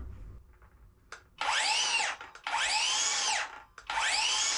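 Hercules cordless 7¼-inch circular saw triggered three times in a row. Each time the motor and blade spin up with a rising whine, then wind down again after about a second.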